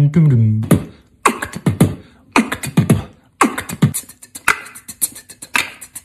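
Mouth beatboxing. A hummed, pitched bass line stops about half a second in, and a beatboxed drum beat follows: punchy kick-like hits, sharp clicks and hissing hi-hat sounds in a steady groove.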